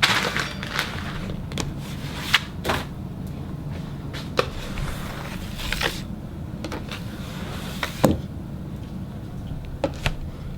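Spatula scraping stuck slime off, a series of irregular scrapes and knocks over a steady low hum.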